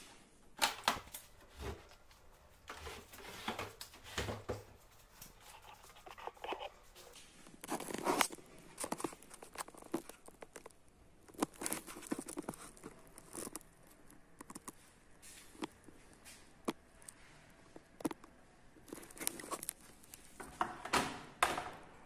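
Handling noise: irregular clicks, taps and rustling as a washing machine's plastic water-level pressure switch and its tube are moved about on the machine's lid.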